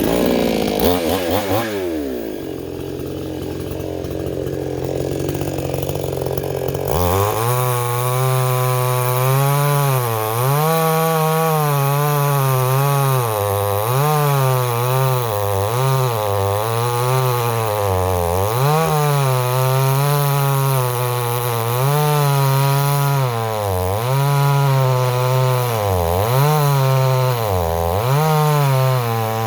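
Dereal 6220G two-stroke gas chainsaw starting up and settling for a few seconds, then at full throttle from about seven seconds in, cutting through a big log, its engine pitch dipping and recovering over and over as the chain takes the load.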